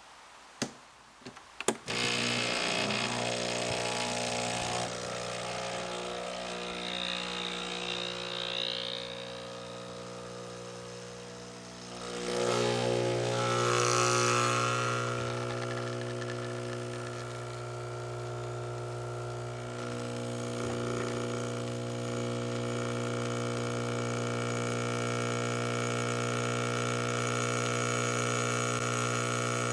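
Breville Barista Express espresso machine pulling a shot. A couple of clicks come first, then its pump starts a steady hum. A little before halfway the hum grows louder with a brief hissing surge, then settles into a steady drone.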